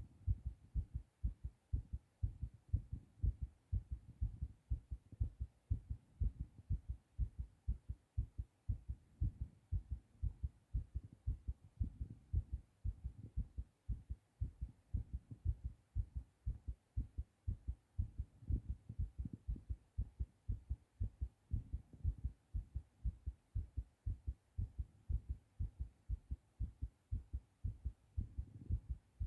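A man's heartbeat in close-up, a fast, steady run of low thumps, raised after a bout of coughing.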